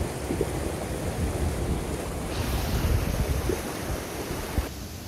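Steady rush of a fast mountain stream pouring over rocks, with wind buffeting the microphone. A single short knock near the end.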